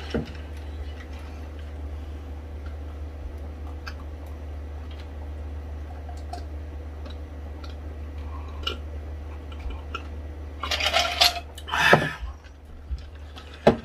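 Drinking ice water from glass mugs: quiet sips and faint clinks of ice and glass over a steady low hum. A few louder, rougher sounds come near the end.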